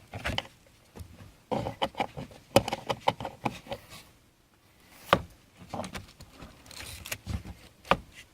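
A wiper arm being handled and set onto its shaft on the cowl, with scattered sharp clicks and knocks and some rubbing as it is positioned. The loudest knocks come about 2.5, 5 and 8 seconds in.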